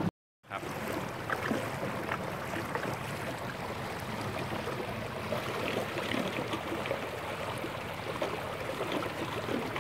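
Water swishing and lapping along the hull of a small fiberglass boat as it moves through calm water, a steady splashing noise with small scattered ticks.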